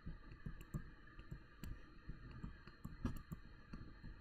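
Light, irregular clicks and taps of a stylus pen on a touchscreen while handwriting, a few a second.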